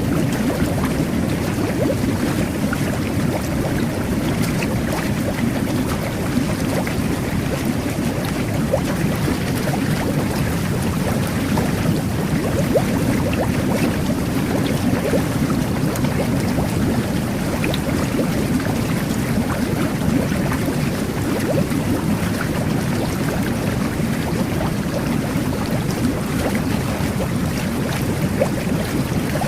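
Jet bath running: water and air jets churning the bathwater into a steady bubbling rumble, with small pops of bursting bubbles.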